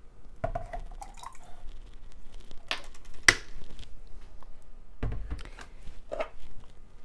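Tabletop handling sounds: a brief trickle of vinegar from a measuring spoon near the start, then sharp plastic clicks and knocks as the spoon and a plastic gallon jug are set down on a countertop. The loudest is a sharp click about three seconds in, with a dull knock about two seconds later.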